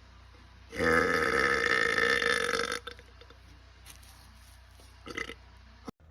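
A man's long, loud burp lasting about two seconds, pitched and fairly steady, then cutting off. A much shorter, quieter sound follows about five seconds in.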